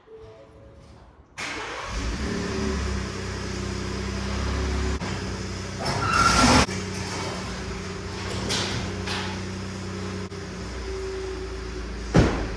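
Truck engine running steadily, coming in suddenly about a second and a half in. There is a louder burst of noise around six seconds and a sharp knock near the end.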